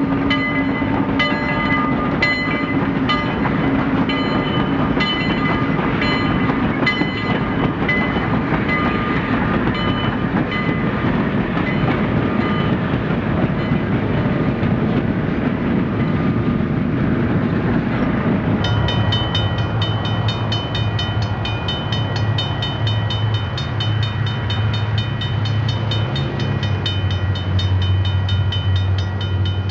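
Train sound effect: a train running, with regular clicks over a steady rumble and ringing tones. About two-thirds of the way through it changes to a steady low drone with a fast, even pulse.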